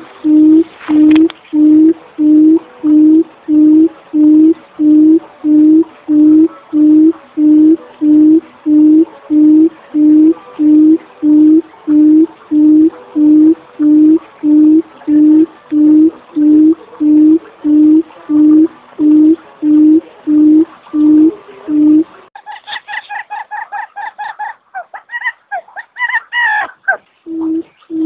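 Female barred buttonquail's low hooting call, repeated evenly about 1.4 times a second: the call used as a decoy to lure buttonquail. About 22 seconds in the hoots stop for a few seconds of higher-pitched broken calls, then resume near the end.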